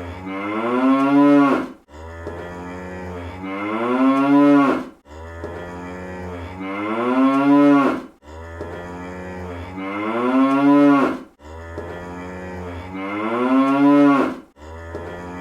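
Cartoon cow moo sound effect repeated on a loop: the same long moo, rising in pitch and swelling before cutting off abruptly, comes round about every three seconds, five times in all.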